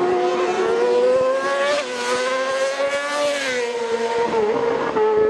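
Racing motorcycle engines running at high revs as the bikes build speed up the road, the pitch climbing and then falling back sharply twice, about two and three and a half seconds in.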